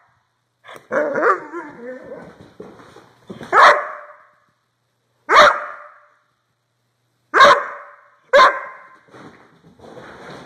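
Doberman barking loudly at close range: about five sharp barks a second or two apart, the first drawn out with a wavering pitch.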